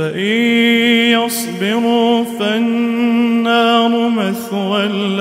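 A man chanting the Quran in melodic tajweed recitation. He holds long notes on a steady pitch with small ornaments, in several drawn-out phrases with brief breaks between them.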